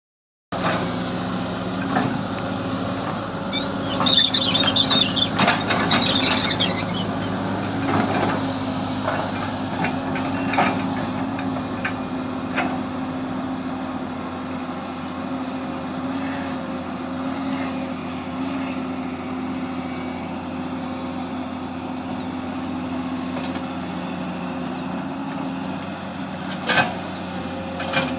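Excavator engine running steadily, with a burst of high-pitched clatter from about four to seven seconds in and a few sharp knocks, the loudest near the end.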